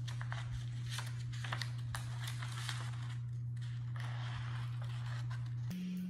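Scissors cutting construction paper: a run of small snips and crisp paper cuts. Under them is a steady low tone that steps up in pitch near the end.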